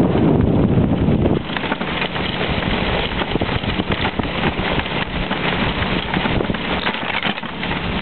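Wind buffeting the microphone over the hiss and scraping of a fast-moving dog sled on snow. The heavy wind rumble drops away about a second and a half in, leaving a rough hiss full of rapid scratches.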